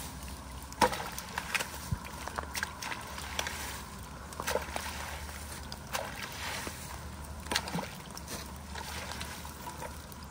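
A long-handled rake splashing and scraping through shallow muddy water and sodden leaves in a ditch, in irregular strokes, the sharpest splash about a second in, while clearing leaf and stick debris that blocks the flow.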